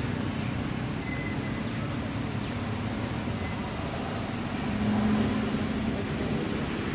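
A motor vehicle engine running steadily with a low hum, swelling a little about five seconds in.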